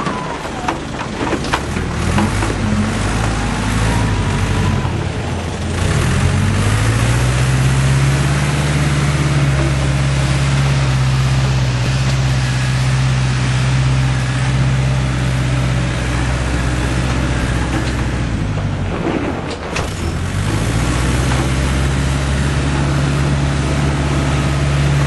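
Perkins four-cylinder diesel engine of a JCB 1400B loader backhoe running, with a few knocks in the first couple of seconds. It revs up to a steady higher speed about six seconds in, drops back briefly just before twenty seconds, then revs up and holds again.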